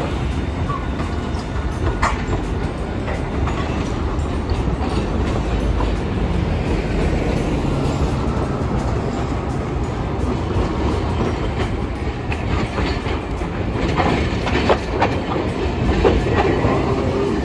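Hiroshima streetcars running on street track: a steady low rumble of trams and road traffic, then an older high-floor tram passing close, its wheels clattering and clicking over the rail joints and crossings near the end.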